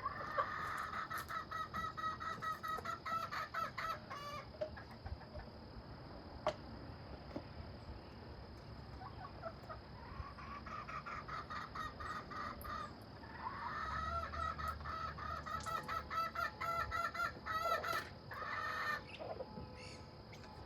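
Chickens: a rooster crowing three times in long drawn-out crows, with hens clucking between the crows.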